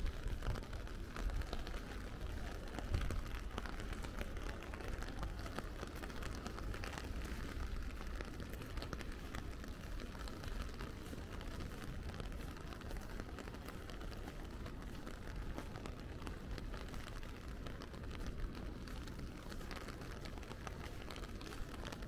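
Steady rain falling, with many distinct drop ticks close by. A low rumble in the first second or two dies away.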